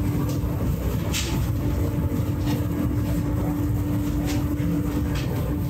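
A steady low mechanical rumble with a constant hum.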